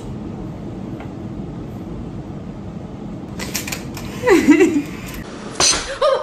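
A woman's excited squealing cry, then a short puff of breath near the end as the birthday candle is blown out.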